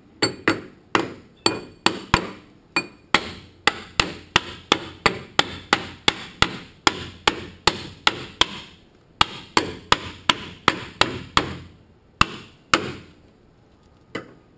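A metal bar driven down repeatedly inside a Toyota A340 transmission case, a rapid string of sharp metallic knocks about three a second, working the tight-fitting center support down into the case. The knocks pause briefly about nine seconds in, and the last two come singly and spaced apart.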